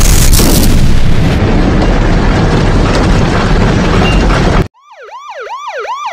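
A loud, rough roaring rumble cuts off abruptly about four and a half seconds in. An emergency-vehicle siren in a fast yelp, about three wails a second, then fades in and grows louder.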